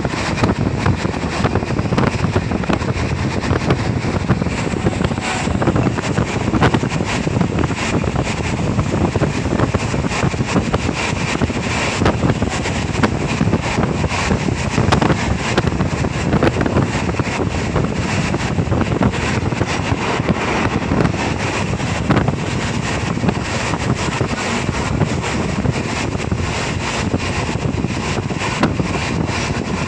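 Steady rushing wind on the microphone at the open window of a fast-moving vehicle, with the vehicle's running noise underneath.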